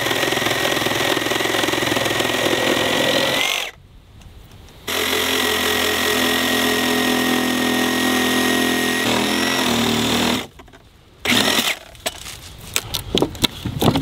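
Milwaukee cordless reciprocating saw with an axe blade cutting through a wooden 4x4 post close to the ground. There are two stretches of steady sawing, broken off briefly about four seconds in, and the saw stops after about ten seconds. A few short knocks follow near the end.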